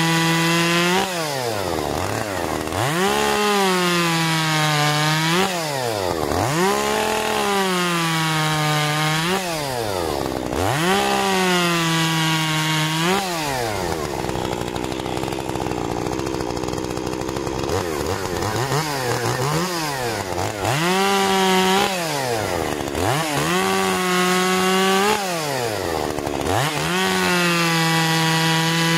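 Solo 6651 two-stroke chainsaw bucking logs into firewood on a sawbuck. It revs up into each cut, sags a little in pitch as the chain bites, and drops back to idle between cuts, about eight cuts in all, with a longer spell at idle about halfway through.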